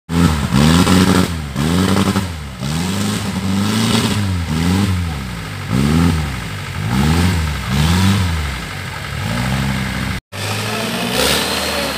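Off-road 4x4 buggy's engine revving up and down about once a second, the throttle worked in pulses as it pushes through deep mud. The sound cuts out for a moment near the end and comes back as a steadier engine note.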